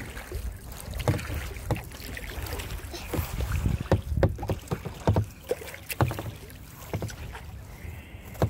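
Kayak on the water: irregular knocks and splashes of paddling against the hull, over a low wind rumble on the microphone.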